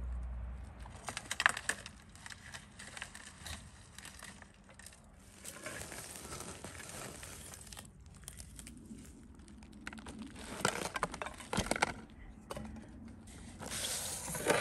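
Ash and baked clay crunching and scraping as clay-encased whole chickens are lifted from a fire pit and handled on a metal tray. Clusters of sharp knocks and crackles come about a second and a half in, again around ten to twelve seconds, and near the end.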